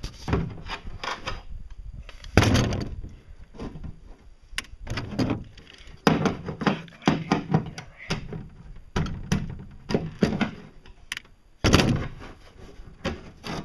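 A thin fiberglass cover being handled, flexed and knocked against a fiberglass boat pontoon while it is worked into place over a hole: a string of irregular knocks and clatters. The loudest are about two and a half seconds in and near the end.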